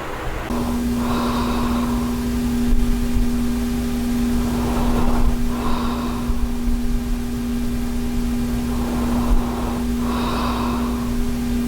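A sleeping person breathing softly without snoring, one quiet breath about every four and a half seconds, over a steady machine hum.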